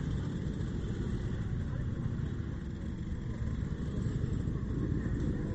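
Motorcycle engines running at low speed, with steady low-pitched engine noise throughout.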